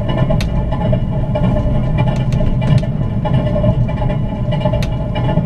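Moving passenger train heard from inside the carriage: a steady low rumble of the wheels running on the rails, with a faint steady hum and scattered sharp clicks and rattles.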